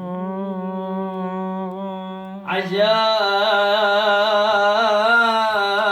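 Male singer holding one long wavering note of a Sufi madih (devotional praise chant), with no words. The voice grows louder and brighter about two and a half seconds in.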